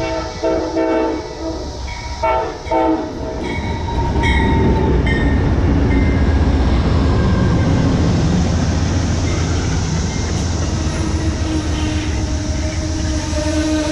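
Amtrak P42DC diesel locomotive's horn sounding in short blasts, then the locomotive's engine and the Superliner double-deck passenger cars rumbling heavily past close by. A steady hum joins in near the end.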